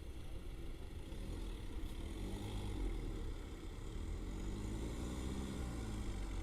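Jeep Compass Trailhawk's 2.0-litre diesel engine working on sand, a steady low rumble with the engine pitch rising and falling several times as it is revved.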